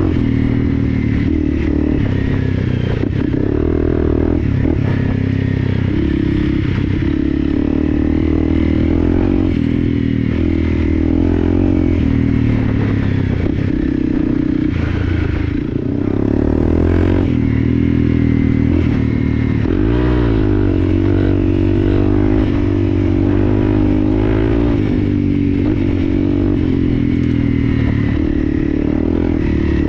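Dual-sport motorcycle engine under way off-road, its pitch rising and falling as the throttle opens and closes through the gears. It eases off briefly about halfway through, then picks up again.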